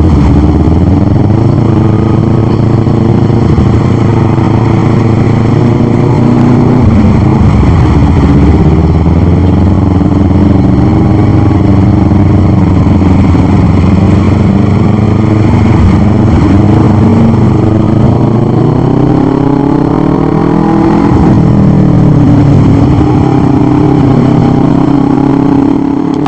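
Motorcycle engine heard from the rider's seat, pulling away and cruising through traffic, its pitch rising and falling with the throttle.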